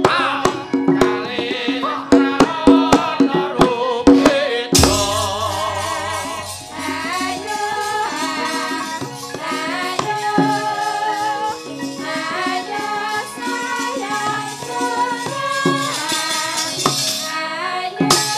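Javanese gamelan accompanying a wayang kulit battle: for the first few seconds, rapid sharp metallic clicks and rattles of the puppeteer's keprak over the ensemble. About five seconds in, the full gamelan comes in with a strong stroke and plays on with dense ringing metallophone tones.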